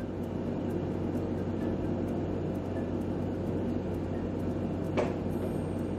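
Steady low hum and hiss of room noise, with a single short click about five seconds in.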